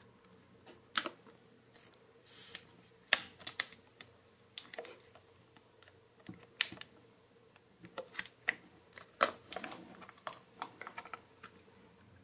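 Thin clear plastic container being handled: fingers pressing and tapping on its lid, giving scattered, irregular sharp clicks and crackles, with a short rustle about two seconds in.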